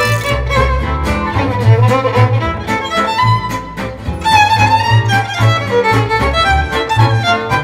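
Music: a violin melody over a pulsing bass line and steady percussion.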